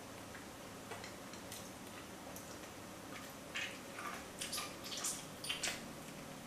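Wet smacks, clicks and squelches of raw lamb heart being bitten into and torn at with the teeth while held in the hands. They come as a few faint clicks at first, then a dense run of sharper ones from about three and a half to six seconds in.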